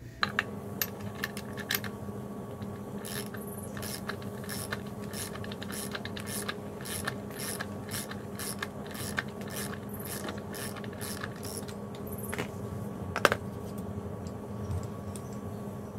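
Ratchet wrench clicking in runs of quick strokes as it cranks the forcing bolt of a pulley puller to draw the pulley off a power steering pump shaft, over a steady hum. One sharper click stands out about 13 seconds in.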